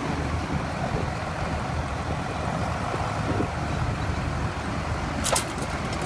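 Large Claas tractor's diesel engine running steadily under load as it tows a stuck lorry out of mud. A single sharp clack is heard about five seconds in.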